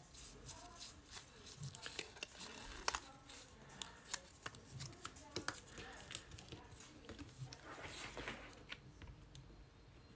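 Card stock crackling and clicking as it is wound tight on a slotted quilling tool and squeezed between the fingers: a run of small sharp crackles with a brief rustle about eight seconds in.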